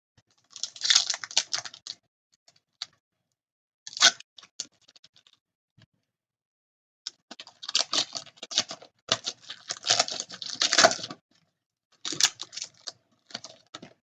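A foil hockey card pack wrapper crinkling and tearing as it is opened, and the cards handled. The crackle comes in several irregular bouts with short silences between, the longest in the second half.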